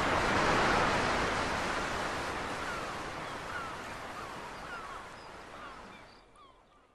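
Sea surf washing onto a beach, a steady rush of noise that slowly fades away. A few short bird chirps sound over it from about halfway through.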